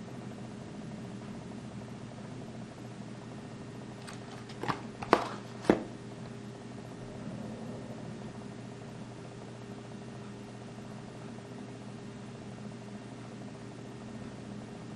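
Clear plastic blister pack being handled and turned over: a short run of sharp plastic clicks about four to six seconds in, the two loudest close together near the end of the run, over a steady low hum.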